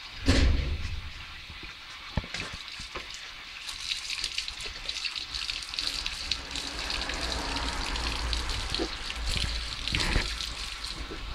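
Water spraying from a garden hose, thumb over the end, splashing onto a steel gas cylinder and wet concrete, a steady hiss from about four seconds in. The spray is cooling the cylinder, which has heated up from the aluminium and caustic soda reaction making hydrogen inside it. A brief loud low thump comes just after the start.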